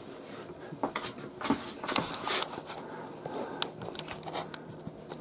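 Irregular light clicks and knocks of things being handled in a small kitchen, over a faint steady low hum.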